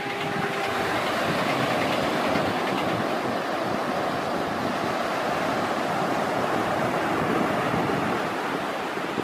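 Sea surf washing over shallow water on a beach, a steady rushing noise, together with the splashing of a small RC monster truck driving through it. A faint high whine fades out about a second in.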